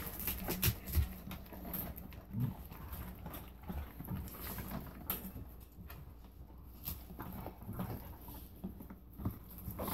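A dog chewing and gnawing a large, partially frozen chunk of raw meat: irregular crunches and clicks of teeth working the meat and bone.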